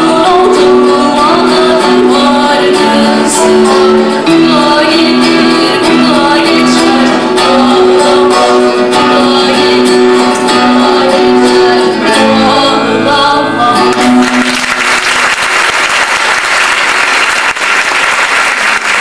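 A live song played on a Yamaha electronic keyboard, with long held notes, ends about fourteen seconds in. The audience then breaks into applause.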